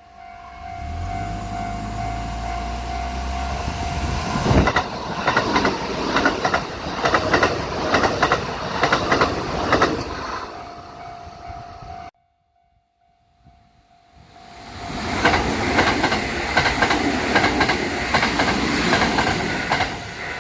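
Kintetsu electric trains passing over rail joints: a rumble, then a quick run of clicking clacks as the wheels strike the joints. This happens twice, with a sudden cut to silence about twelve seconds in. Throughout both passes a level crossing alarm rings as a steady tone.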